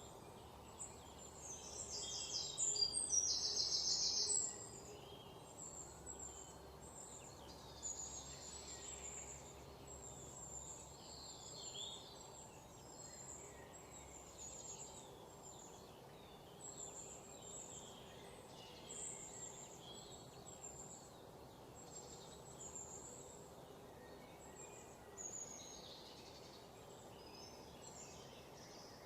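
Forest ambience of small birds calling, with many short, high chirps repeating throughout. A louder rapid trill comes for about two seconds a couple of seconds in.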